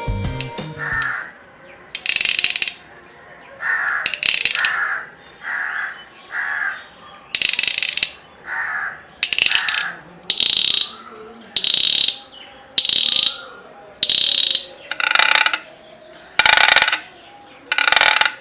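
Homemade bottle-cap and rubber-band noisemaker rattling in short bursts of rapid clicks, about one burst a second, some lower and some higher in pitch. It imitates a woodpecker's drumming or the chirp of a house lizard.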